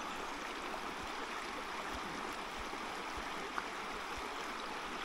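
Steady rushing of a flowing creek, with a single faint click about three and a half seconds in.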